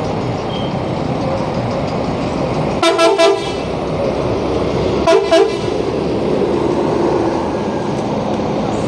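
Bus horn blown in two quick sets of short blasts, about two seconds apart, over the steady rumble of a bus engine pulling away.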